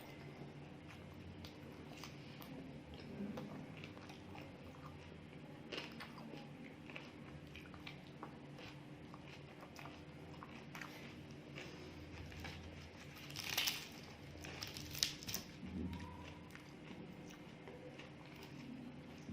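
Close-miked eating: food being bitten and chewed, with scattered small crunches and clicks over a low steady hum, and a louder crunch about two-thirds of the way through.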